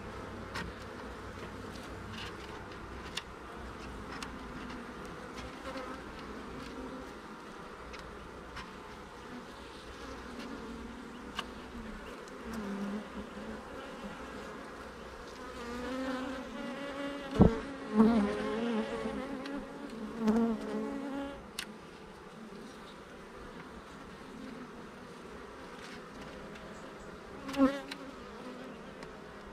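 Honeybees buzzing around an open brood box, with single bees flying close by in a wavering hum that grows louder about halfway through. A sharp knock comes midway, the loudest sound, and another near the end.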